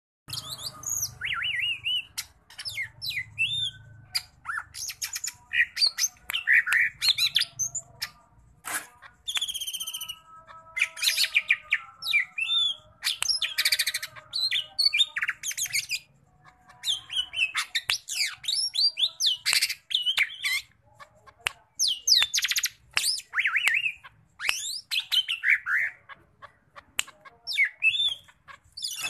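Male greater green leafbird (cucak ijo) singing excitedly, running through its repertoire of learned, mimicked phrases: a fast, varied stream of whistles, sweeping notes and rapid chattering trills, broken by short pauses.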